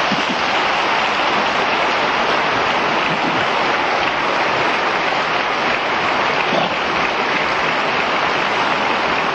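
Audience applauding steadily and without a break.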